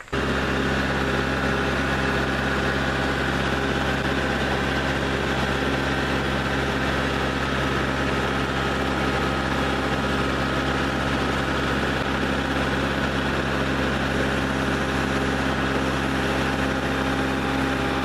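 Kubota MX tractor's diesel engine running at a steady speed.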